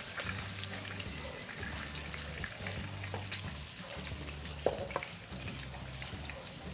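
Cooking oil sizzling gently in a wok with a piece of shrimp paste frying in it, with small clicks and a metal skimmer clinking against the wok; one sharp clink a little past the middle.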